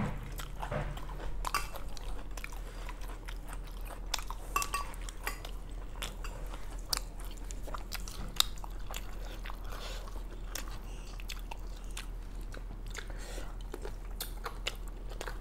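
Close-up mouth sounds of people eating chicken curry and fried rice by hand: chewing and biting, heard as many scattered short clicks and smacks.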